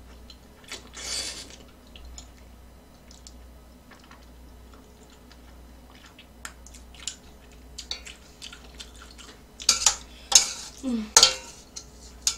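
Metal chopsticks and spoon clicking and scraping against a stainless-steel pot of ramen, with noodles slurped in short noisy bursts, the loudest of them near the end.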